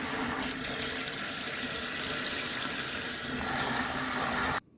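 Tap water running steadily into a kitchen sink over vegetables being washed, cutting off suddenly near the end.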